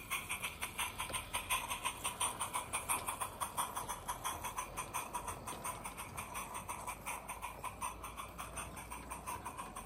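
7/8th-scale live steam De Winton locomotive chuffing steadily under load, its exhaust beats sharpened by a Summerlands Chuffer in the resonator; a quick, even rhythm that fades a little as the engine draws away near the end.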